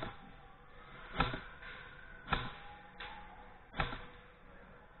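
Single sharp airsoft shots, four of them about a second apart, the third weaker than the rest.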